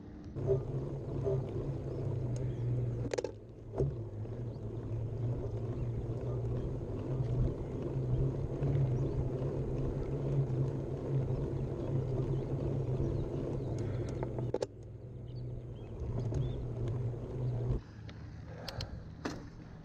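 Mountain bike being ridden on a trail: steady rolling rumble and wind noise with a low hum, broken by a few sharp knocks and rattles. The sound drops off abruptly about fifteen seconds in, picks up again, and changes again near the end.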